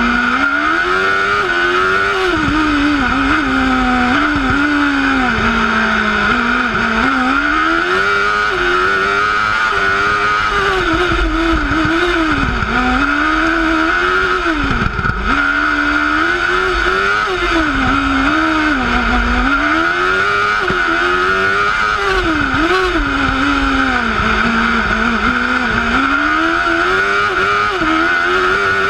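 Formula Challenge single-seater race car's engine, heard from on board at racing speed: the revs climb and drop again and again as it accelerates, shifts gear and slows for the tight chicanes. A steady high whine runs underneath.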